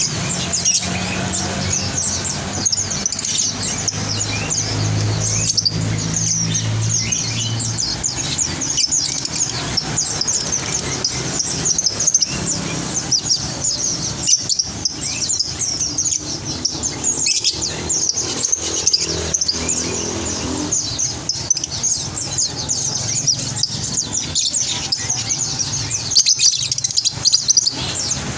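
Many caged sunbirds ('kolibri ninja') twittering together, a dense, unbroken stream of short, high chirps, over a low steady hum.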